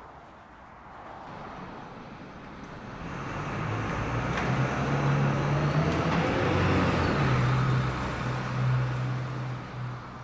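Bus engine running as the bus comes close: a low, steady engine hum that grows louder from about two seconds in, is loudest through the middle, and fades near the end.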